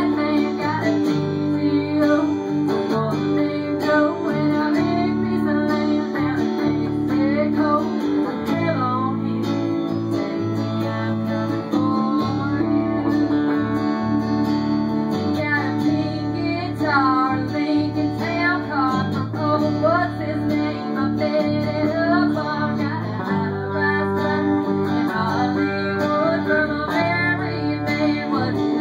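A small band playing a country song live: electric guitars, bass guitar and drums, with a woman singing lead.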